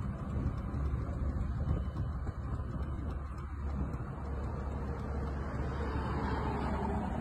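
Steady low rumble of vehicle engines running, with a swell of broader noise near the end.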